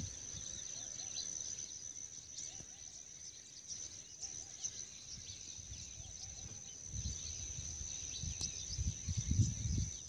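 Insects droning on one steady high-pitched note, with small bird chirps scattered over it. From about seven seconds in, wind buffets the microphone in low rumbles.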